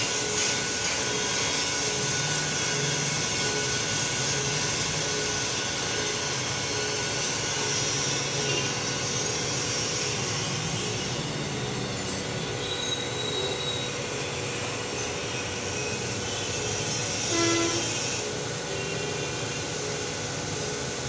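Crankshaft grinding machine's abrasive wheel grinding a steel crankshaft journal to size: a steady high grinding hiss over the hum of the machine's motors. There is one brief louder sound about three-quarters of the way through, and the grinding hiss eases off near the end.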